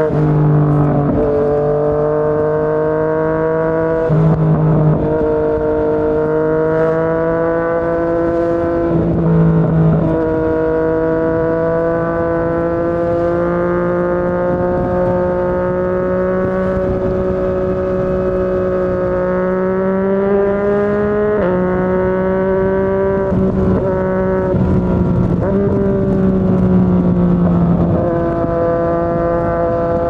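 Yamaha MT-09's three-cylinder engine through a Yoshimura R55 slip-on exhaust, heard from the rider's seat while riding. It is a steady drone that climbs slowly in pitch under light throttle. A few short breaks interrupt it, and at one of them, about two-thirds through, the pitch steps down as the bike changes gear.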